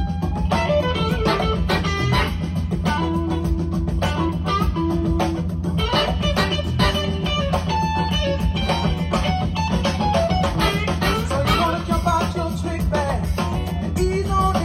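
Instrumental band music with a steady beat: guitar over drums and bass.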